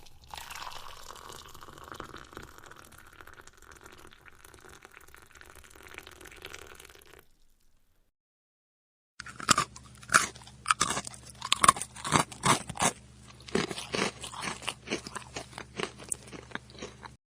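A steady hiss of unclear source for about seven seconds that fades out, then, after a short silence, someone crunching and chewing crisp food with sharp bites, about two to three crunches a second.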